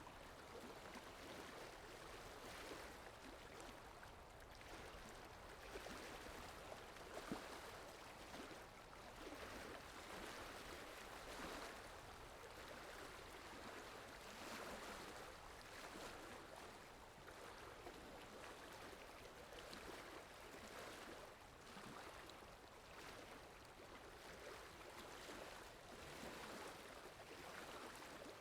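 Steady rain falling, an even hiss that swells and eases a little, with a sharper single drop about seven seconds in.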